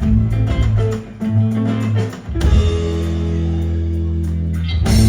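Live rock band playing with guitars and bass: a run of plucked notes, then one chord held for a couple of seconds, then the band hits in loudly again near the end.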